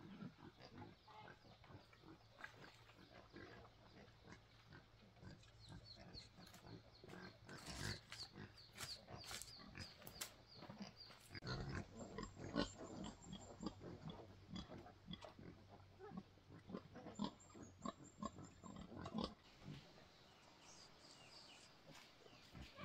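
Black pigs grunting, a sow with her young piglets: short, irregular sounds that come thick in the middle and thin out near the end.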